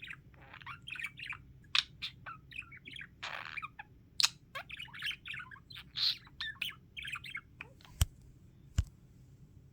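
Male budgerigar chattering at nap time, a quick run of short chirps and warbles. Two sharp clicks come near the end.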